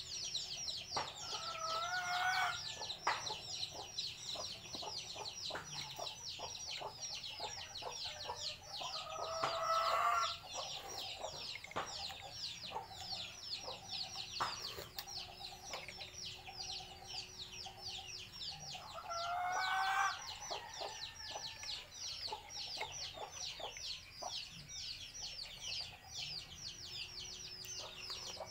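A rooster crows three times, each crow lasting a second or two, about nine seconds apart. Under it runs a continuous rapid high-pitched chirping, with scattered light clicks.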